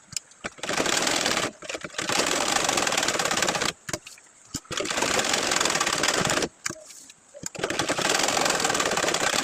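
Sewing machine stitching in four runs of one to two seconds each, with short stops between them.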